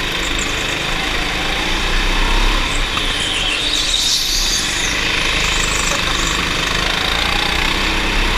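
Go-kart engine running steadily at racing speed, heard from onboard the kart, with continuous wind and track noise; a brief higher hiss rises about halfway through.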